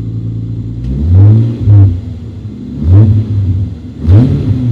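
Toyota 2JZ-GTE twin-turbo inline-six in a JZA80 Supra, running through a Blitz Nur-Spec exhaust, idling and then revved three times in quick blips about a second or so apart. Each rev rises and drops back to idle. The engine is not yet fully warm and is being checked for a misfire after new spark plugs.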